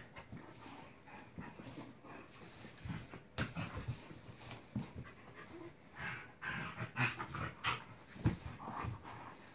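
A Pembroke Corgi and an Irish Wolfhound play-wrestling: dog panting in irregular bursts, mixed with short scuffles and knocks as they grapple.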